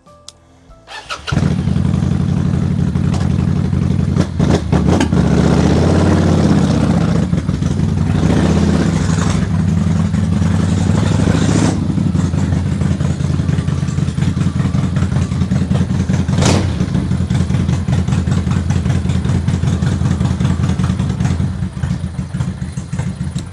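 The 1965 El Camino's engine catches about a second in and runs on its own, now fed from the restored fuel tank rather than bottle-fed. It revs up and down a few times, then settles to a steady idle.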